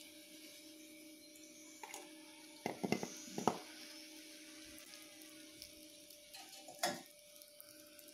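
Hot oil sizzling faintly in a kadai, over a low steady hum, with a few short knocks and clinks about three seconds in and again near seven seconds.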